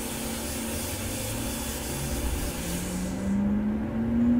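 Running sound of a Kintetsu 30000 series Vista Car motor car as it pulls away: a hiss that cuts off about three seconds in, and a low motor hum that starts rising steadily in pitch as the train gathers speed.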